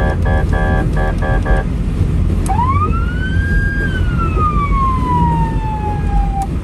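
Pulsing music chords stop about a second and a half in. Then a single siren wail rises quickly, falls slowly over about three seconds and cuts off suddenly near the end. A steady low rumble of vehicle road noise runs underneath.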